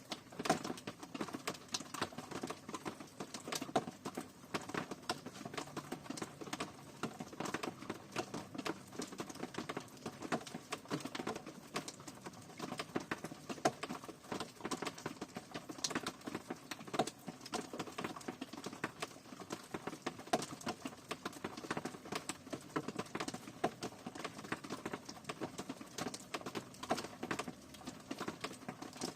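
Rain falling, with dense, irregular drops pattering and tapping close by.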